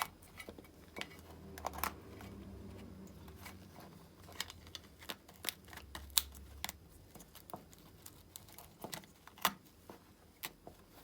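Irregular light clicks and taps, as of small hard objects being handled and set down, over a faint low hum.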